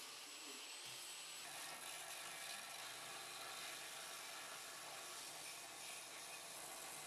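An angle grinder's disc grinds on an old charcoal iron, throwing sparks. About a second and a half in, the sound changes to the belt of an Infinity 200 W bench grinder with a belt sander, running with a small iron part pressed against it and making a steady grinding noise.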